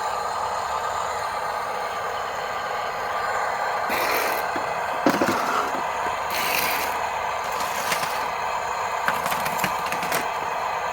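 Small electric motors and gearboxes of radio-controlled construction models running steadily, with bursts of scraping and rattling from about four seconds in, as of soil and stones being dug or tipped.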